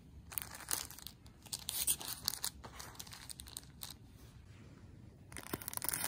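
Clear plastic bag crinkling and crackling as hands handle it, in a run of short crackles that stops for about a second near the end and then starts again.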